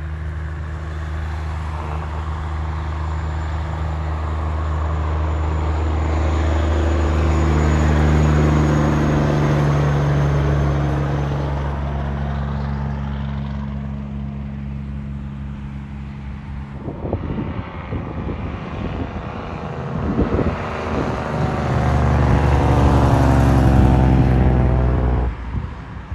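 Diesel semi trucks passing on a highway. One truck's steady engine drone builds to its loudest about eight seconds in and fades, then after a stretch of uneven rumbling another passing vehicle swells up and cuts off suddenly near the end.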